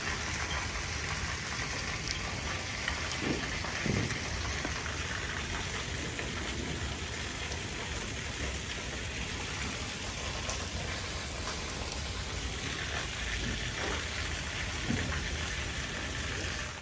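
Water poured in a steady thin stream from a brass lota, splattering on the ground below with an even, rain-like patter: an arghya water offering to the moon.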